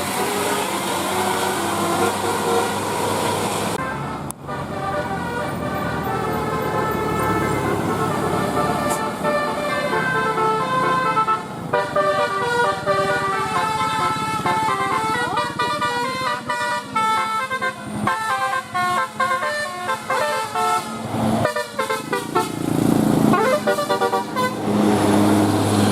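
Bus telolet horn, a Basuri multi-tone air horn, playing quick runs of melody notes, with a short break about four seconds in.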